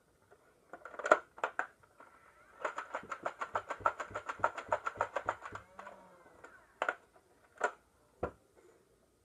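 Nerf Stryfe flywheel blaster firing: the motors whir while a rapid string of darts goes out, about seven shots a second for some three seconds. A few separate clacks of handling the blaster follow.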